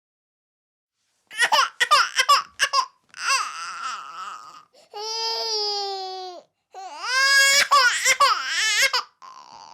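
Infant crying: after about a second of silence, a run of short, choppy cries, then one long wail that sags in pitch near its end, then more short cries.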